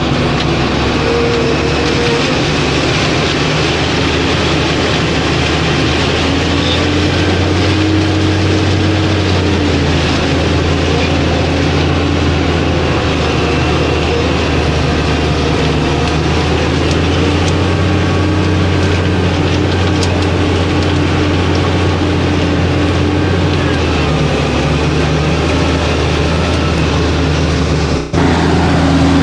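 New Holland TM155 tractor's diesel engine running steadily while pulling a plough through mud, its pitch shifting slightly now and then, with a brief break near the end.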